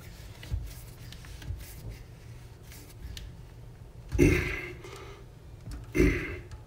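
Hand-tightening the plastic coupling nut of a toilet water supply line onto the fill valve under the tank: soft rubbing and handling noises, with two short, louder sounds about four and six seconds in.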